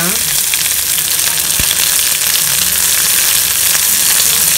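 Sliced onions and curry leaves sizzling steadily in hot oil in a kadai, being sautéed with salt to soften them.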